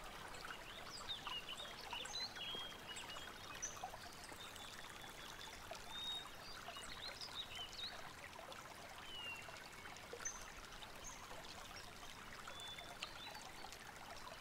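Woodland ambience: scattered short bird chirps and calls over a steady soft hiss.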